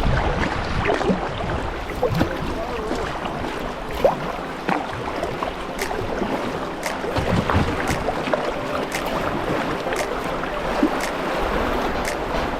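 River water splashing and rushing around a kayak on moving current, with scattered small splashes and clicks throughout.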